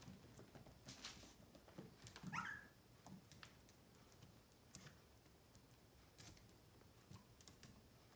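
Mostly near silence, with one short whine from a Pomeranian puppy about two seconds in, rising and then falling in pitch, and scattered faint clicks.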